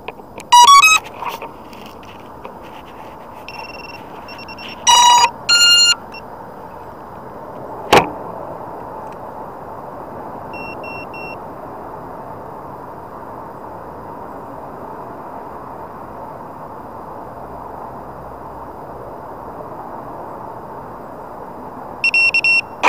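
Electronic beeps and short alert tones over a steady background hiss: a loud quick run of tones about half a second in, a louder pair of alert tones around five seconds, a few soft high beeps around four, eleven and twenty-two seconds, and one sharp click about eight seconds in.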